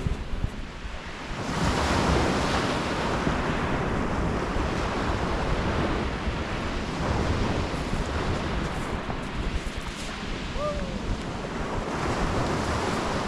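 Sea waves breaking and washing on a shingle beach, swelling in surges a few times, with wind buffeting the microphone.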